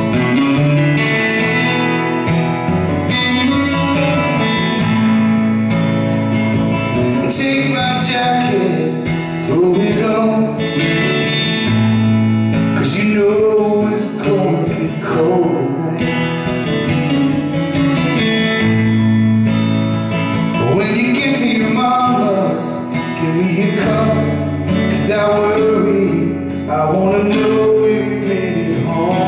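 An electric guitar and an acoustic guitar playing a song live, strummed chords, with a man singing lead over them.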